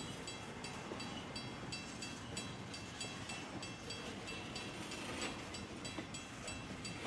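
Double-stack intermodal freight cars rolling past with steady wheel-on-rail noise, while a grade-crossing bell rings about three times a second.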